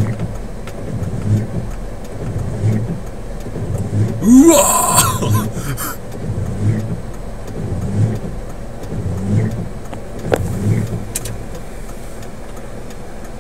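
Car on the road: steady road noise with regular low thuds about every two-thirds of a second, and a loud rising rush about four seconds in.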